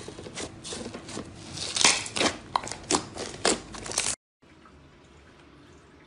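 Fluffy slime being pressed and squeezed by hand, crackling with many small sharp pops. It cuts off suddenly about four seconds in, leaving only a faint hiss.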